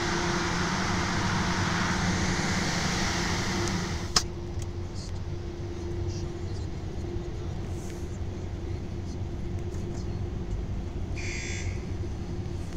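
Automatic tunnel car wash heard from inside a car cabin: a steady hissing rush of the wash runs, then stops with a sharp click about four seconds in, leaving a low steady hum. A short hiss comes near the end.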